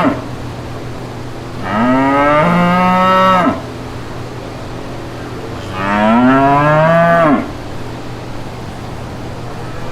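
Cow mooing: two long moos a few seconds apart, each lasting about one and a half to two seconds, its pitch rising at the start, over a steady low hum.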